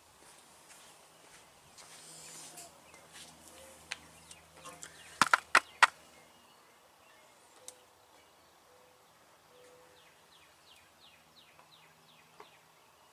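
Four sharp taps in quick succession about five seconds in, with scattered fainter ticks around them, over a faint outdoor background in which short high chirps, like a bird's, come faintly near the end.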